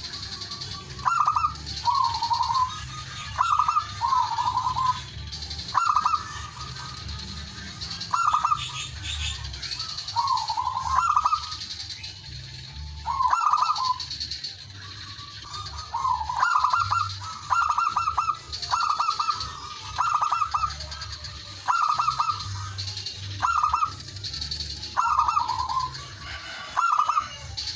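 Male zebra dove (perkutut) cooing over and over, a male's call to rivals. Each call is a short burst of rapid ringing notes, some ending in a lower wavering coo, coming about once every second or so with a few longer gaps.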